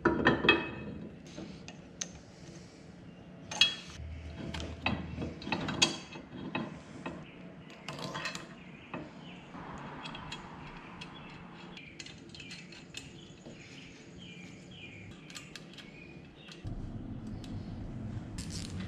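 Metal clinks and knocks as bolts are fitted through a steel bracket to mount a hydraulic loader valve, with runs of quick ratchet-wrench clicking as the bolts are run in. A low steady hum comes in near the end.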